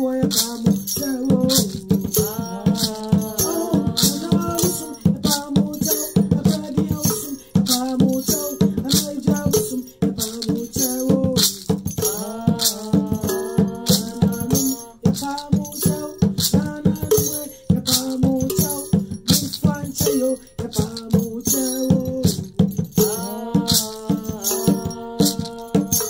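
Hand drum beaten in a fast, steady rhythm, with a rattle shaken on the beat and a voice singing long, wavering notes over it.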